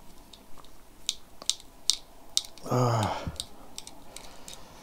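Light, sharp clicks and taps at irregular intervals, about eight in all, from a small screwdriver and tiny screws being worked out of the plastic body of a Holy Stone HS170 micro quadcopter. A short, low vocal hum from a person comes a little past halfway.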